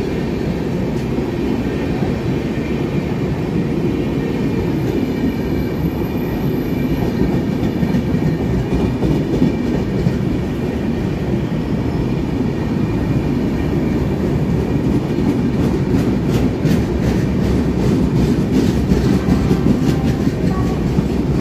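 Indian Railways LHB passenger coaches rolling past along a platform: a loud, steady rumble of wheels on rail, with a run of clicks as the wheels cross rail joints in the last few seconds.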